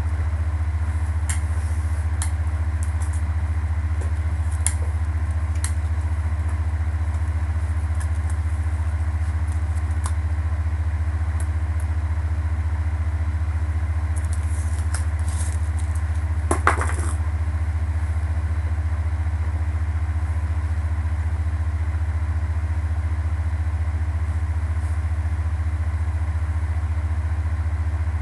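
Steady low hum that does not change, with a few faint clicks and one brief rustle a little past the middle.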